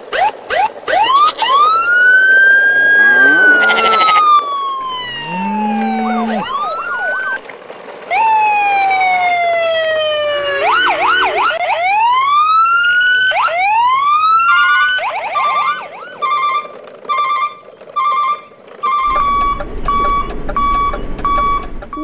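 Electronic siren sound effects: a string of rising and falling pitch sweeps, then, about two-thirds of the way in, a pulsing alarm beep about once a second that settles into a steady tone near the end.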